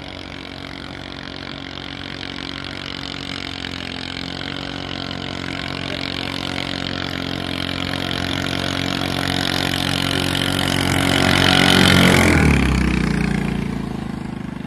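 Racing boat's engine running at full speed as the boat approaches, growing steadily louder. It passes close by about twelve seconds in, and its pitch drops as it goes away.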